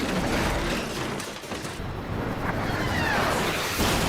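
Hurricane-force gust of wind blasted out by a superhuman sneeze, a dense, loud rush of air with a few whistling tones that glide in pitch around the middle.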